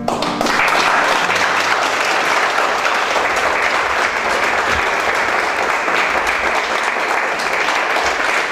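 Audience applauding steadily, beginning as the last guitar notes die away.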